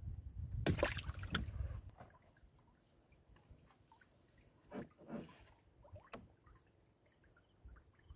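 Wet gill net being handled and hauled over the side of a small boat: water splashing and dripping. There is a loud cluster of splashes and knocks about a second in, then a few short drips and splashes later on.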